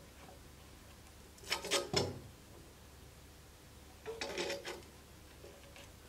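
Small metal handle fittings and a hex nut clinking and knocking against a wooden workbench during assembly of a knife handle: a quick cluster of clicks about a second and a half in, ending in a dull knock, then a second cluster about four seconds in.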